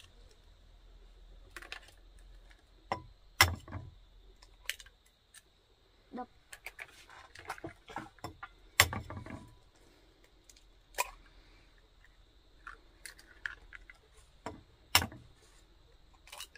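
Chicken eggs being cracked one after another against a ceramic bowl: a sharp knock of shell on the bowl every few seconds, the loudest about three and a half, nine and fifteen seconds in, with lighter clicks of shell between.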